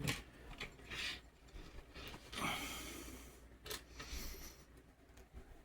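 Small plastic model-kit parts being handled and pushed into place: a few light plastic clicks, with a longer scraping rustle in the middle.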